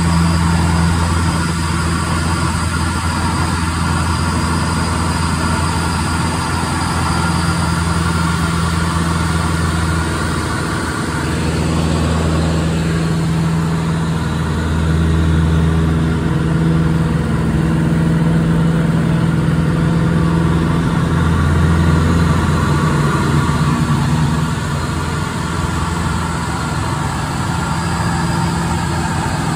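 Vans RV-6 light aircraft's piston engine and propeller droning steadily, heard from inside the cockpit. The drone eases and swells in level a few times as the aircraft flies a loop.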